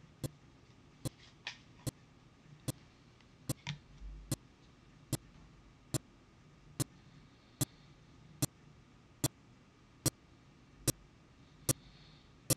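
Steady ticking: sharp, evenly spaced ticks a little more than one a second, with a soft low thump about four seconds in.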